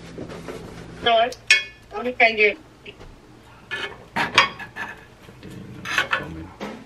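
Metal spatula scraping and clinking against a cast-iron skillet while lifting cinnamon rolls out, in several separate clinks.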